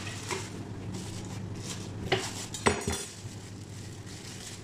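Kitchen handling sounds: a few sharp knocks of utensils and items against the counter and cutting board, the loudest two about two seconds in and just before three seconds. A plastic bag rustles as bread is packed into it, over a steady low hum.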